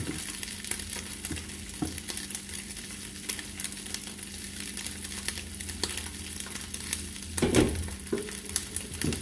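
Diced turkey ham frying in oil in a skillet: a steady sizzle full of small crackling pops over a low hum. About seven and a half seconds in, a metal kettle clanks down on the gas stove grate.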